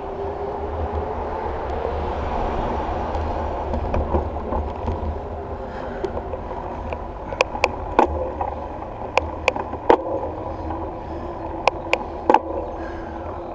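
Bicycle riding along a paved road: steady wind buffeting the microphone over a low tyre rumble. From about halfway through come irregular sharp clicks and rattles, about a dozen in all.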